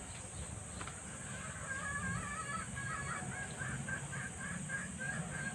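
A bird calling outside, starting about two seconds in with a wavering call and then a quick run of short repeated calls, over a faint low hum.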